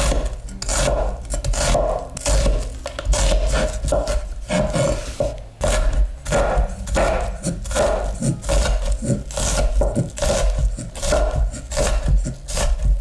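Santoku-style knife slicing and then dicing a raw onion on a wooden cutting board: a steady run of crisp cuts, each ending in a knock of the blade on the wood, about two to three a second.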